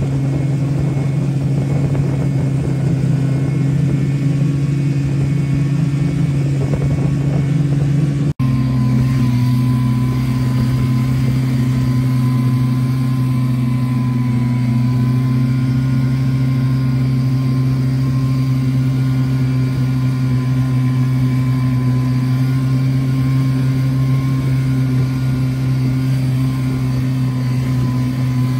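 Buran snowmobile engine running at a steady cruise, heard from the rider's seat. The sound drops out for an instant about eight seconds in, and the drone continues at a slightly different pitch.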